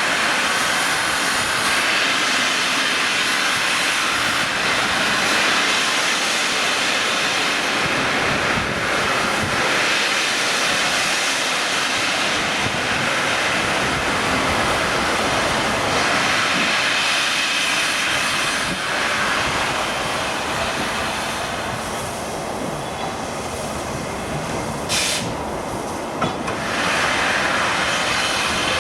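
A railway train running on the line: a loud, steady rushing noise that eases a little toward the end, with two brief sharp hisses near the end.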